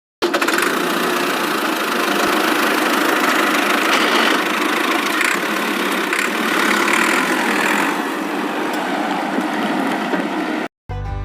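A small engine running steadily, starting suddenly and cutting off abruptly near the end.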